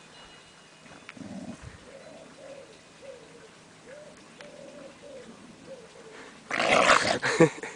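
Staffordshire bull terrier puppy and adult dog tugging a stick, with faint wavering play growls. A loud rough burst comes near the end.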